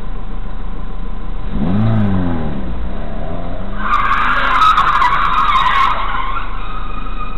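Car tyres squealing in a skid for about two seconds, starting about four seconds in, with a few sharp clicks over it. Shortly before, an engine note rises and falls in pitch.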